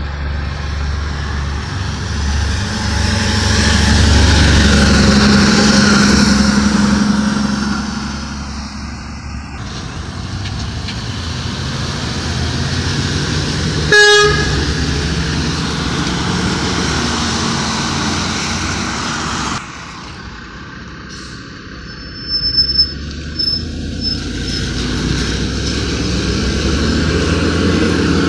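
Traffic passing on a wet road, tyres hissing and truck engines running. About halfway through a box truck gives one short horn toot. Near the end a garbage truck's diesel engine grows louder as it pulls away.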